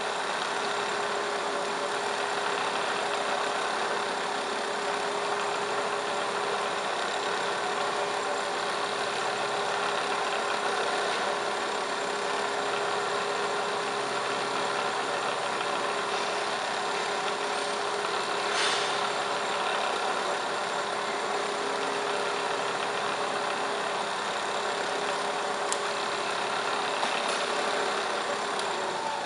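MSC 10" x 54" vertical milling machine running steadily: a constant mechanical hum with a steady whine from the spindle drive. Two short clicks come in the latter half.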